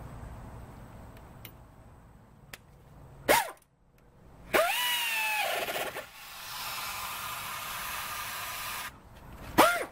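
Air ratchet running down the brake-line banjo bolt on a new front brake caliper. A short burst comes about three seconds in. About a second later a longer run starts, rising in pitch and settling into a steady whine with air hiss for about four seconds, and another short burst comes near the end.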